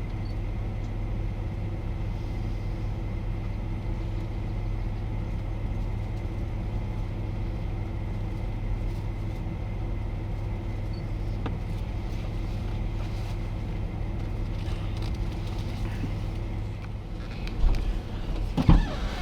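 Vehicle engine running steadily with a low, even hum, and a few short knocks near the end.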